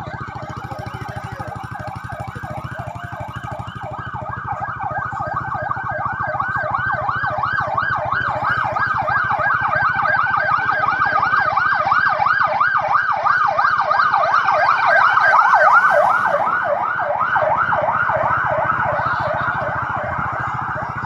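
Police escort sirens of a vice-presidential motorcade, a fast continuous warbling wail. It grows louder as the escort approaches, is loudest about three-quarters of the way through, then fades as it passes.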